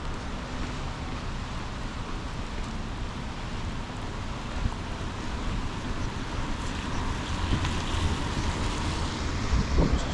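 Steady hiss of wind and rain, with gusts buffeting the phone's microphone in uneven low rumbles.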